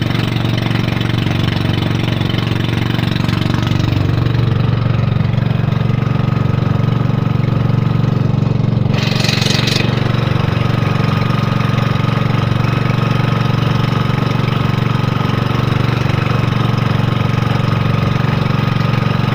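Engine of a motorised outrigger fishing boat running steadily while the boat is under way. A brief hiss cuts in about halfway through.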